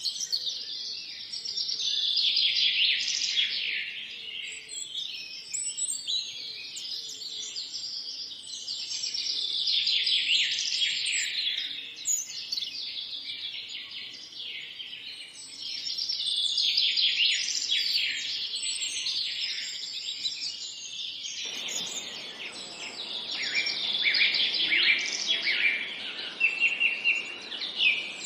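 A dense chorus of many songbirds chirping and trilling together, high-pitched, swelling and fading in waves every several seconds. A faint steady hiss comes in underneath about three quarters of the way through.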